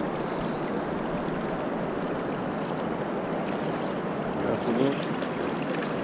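Swift river current rushing steadily, an even water noise.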